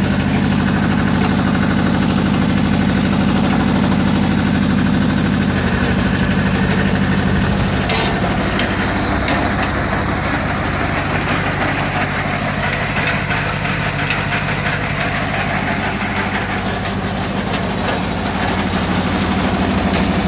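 Two-cylinder diesel engine of a Yanmar YM-2210 mini tractor running steadily and evenly. Its note shifts about six seconds in, and a little more hiss comes in after that.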